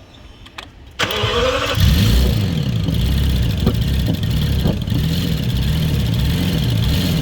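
BMW V12 engine started: a brief crank about a second in, then it catches and runs at idle with a regular rise-and-fall waver in its note, the uneven running of a misfire.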